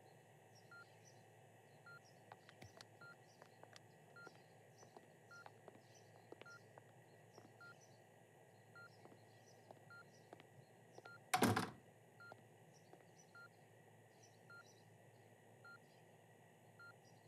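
Hospital patient monitor beeping faintly, a short high beep about once a second, over quiet room tone. A brief loud whoosh comes about eleven seconds in.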